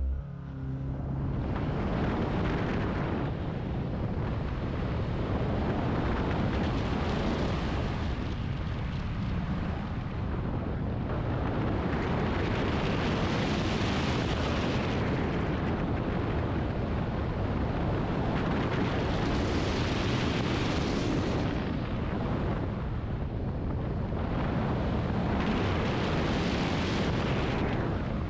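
Wind buffeting a camera mounted outside a Volkswagen Golf R during an autocross run, over the noise of the car's engine and tyres. The rush swells and eases every few seconds.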